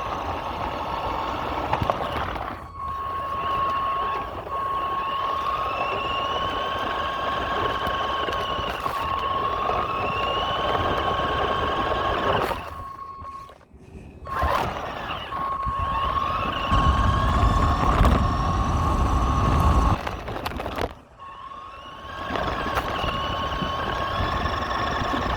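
Radio-controlled truck's motor whining up and down in pitch with the throttle, with a steady high beeping tone over it. The sound drops away briefly twice, and a louder low rumble comes a few seconds past the middle.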